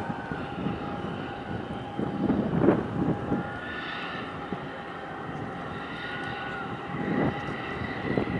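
Steady engine drone with a high, slowly wavering whine, and two louder rushes of noise, about two seconds in and near the end.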